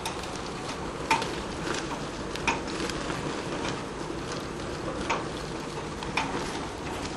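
Irregular sharp knocks and clatters, roughly one every second, over a steady rush of wind noise.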